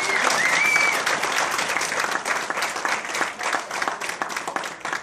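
Audience applauding, with a high whistle that dips and rises in the first second; the clapping thins out and dies away toward the end.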